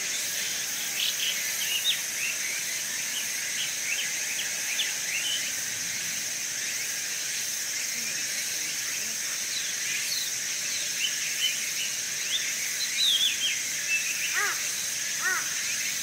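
Park woodland ambience: a steady high insect drone with many short bird chirps over it. About fourteen seconds in, a bird starts a series of repeated arching calls.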